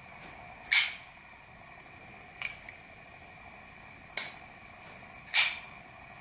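Maxace Amber 2S folding knife being worked open and closed: sharp metallic clicks as the blade snaps into its open and closed positions, three loud clicks and one fainter one, spaced a second or more apart.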